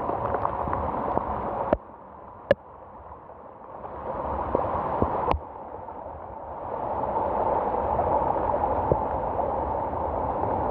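Heavy rain falling, with single drops ticking sharply close by. The rain sound cuts out suddenly about two seconds in and again about five seconds in, building back up each time.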